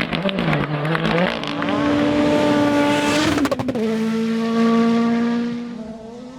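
Rally car engine at full throttle: revs rising and falling briefly, then a high held note, a crackle at a gear change about three and a half seconds in, and a lower held note that fades away near the end.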